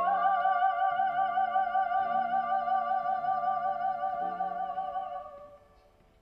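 Music: one long, high held note with a wide, even vibrato, sung operatically or played on a theremin-like instrument, over sustained low chords that change about once a second. It fades away about five and a half seconds in.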